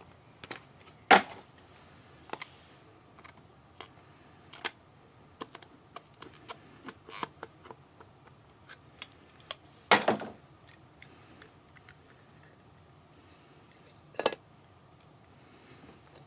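Scattered clicks, taps and light rustles of a trading-card box and its wrappers being opened and the cards handled, with a few sharper knocks: one about a second in, one around ten seconds in and one near the end.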